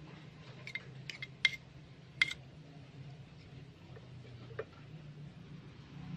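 Small metal utensils clinking and tapping against a miniature aluminium wok and bowl as bean sprouts are tipped in and stirred. There are a few light ringing taps, the two loudest about one and a half and two and a quarter seconds in, then a softer knock near the end, over a low steady hum.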